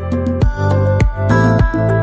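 Background music: sustained chords over a steady beat, a low thump about every 0.6 seconds.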